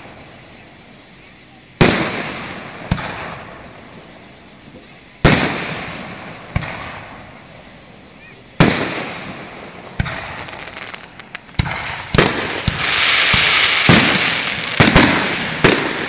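Aerial fireworks going off: several loud booms spaced a few seconds apart, each fading slowly. In the last few seconds the reports come quicker, over a dense crackling of bursting shells.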